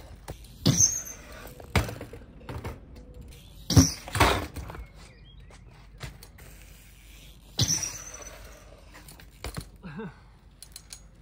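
A BMX bike being ridden and jumped on a concrete skatepark ramp: several sharp thumps and knocks of tyres and frame landing, the loudest about four seconds in, with smaller knocks near the end.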